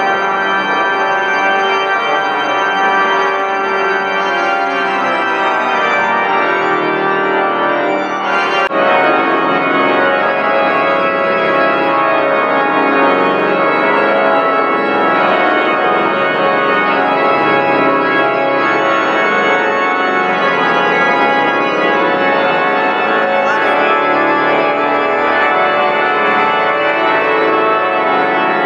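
Loud cathedral pipe organ playing, many stops sounding together in a dense, sustained chordal texture. About eight seconds in the sound briefly drops, then comes back fuller.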